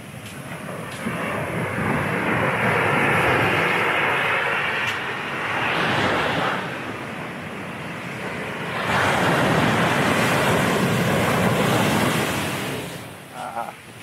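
Big shore-break waves crashing on the beach: the surf noise builds over the first two seconds and holds, then a second, larger crash comes about nine seconds in and dies down near the end.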